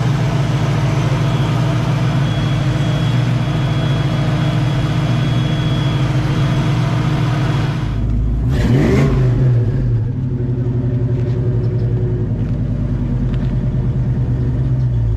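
Car engine running steadily. About eight seconds in, a brief rev rises and falls, and the engine then settles back to a steady run.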